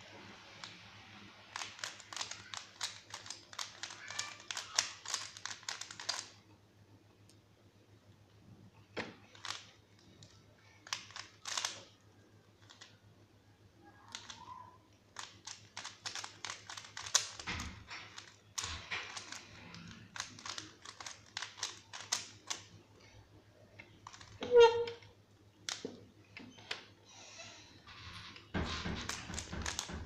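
Plastic 3x3 Rubik's cube being turned fast by hand: dense runs of rapid clicking as the layers rotate, broken by short pauses, over a faint low hum. About three-quarters of the way through, a short, loud pitched sound stands out above the clicking.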